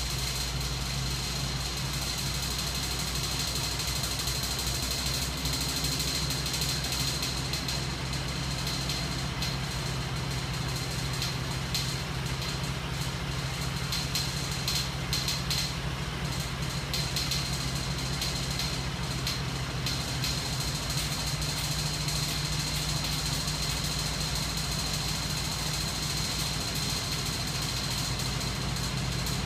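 Bench rig of small DC motors and flywheels running steadily: a low hum with a thin, steady high whine over it.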